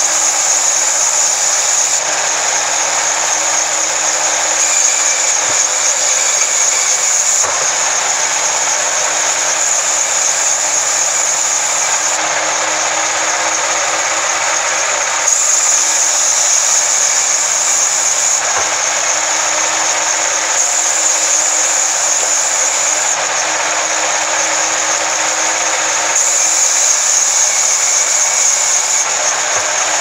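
Band sawmill running steadily with its blade cutting through a coconut log: a loud, continuous whine and hiss. A few faint knocks from sawn boards being handled can be heard.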